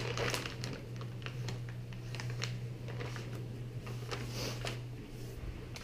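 Clear plastic bag crinkling and crackling as it is handled, in many small irregular crackles, over a steady low hum.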